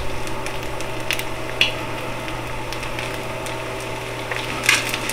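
Eggs frying gently in a nonstick pan, one of them inside a silicone egg ring: a low sizzle with a few scattered pops and crackles, over a steady low hum.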